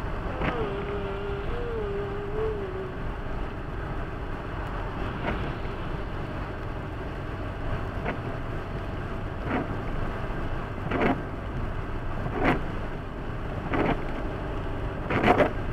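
Steady road and engine noise inside a car's cabin at highway speed on a wet road. In the second half a windshield wiper sweeps about every second and a half.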